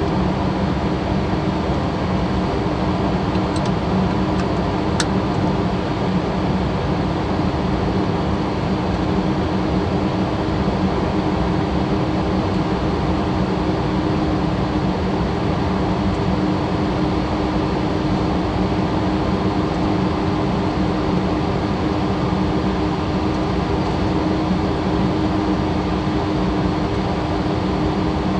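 Steady cockpit noise of a Cessna Citation Latitude business jet in flight: an even rush of airflow with a steady low hum beneath it. A faint click or two in the first five seconds.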